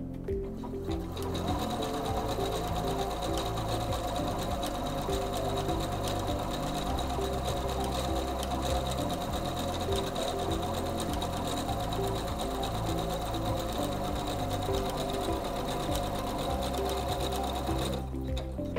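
SINGER C430 computerized sewing machine stitching steadily, sewing a row of slant over-edge stitch. It starts about a second in and stops near the end, with background music underneath.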